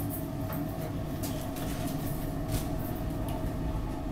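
Market-Frankford Line subway car running on the rails, heard from inside the car: a steady low rumble with a steady mid-pitched hum over it and a few faint short clicks.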